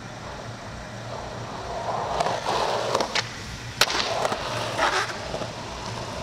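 Skateboard wheels rolling on asphalt, growing louder, with a few sharp clacks of the board, the sharpest about four seconds in.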